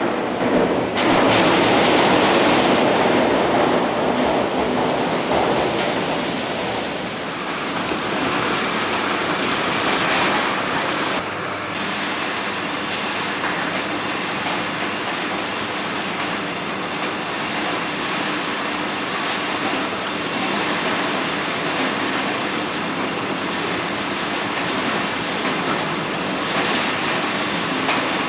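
Garlic-head sorting machine running, with a steady mechanical clatter of garlic bulbs rattling over its rollers and perforated sorting screens. It is louder for the first several seconds after a jump about a second in.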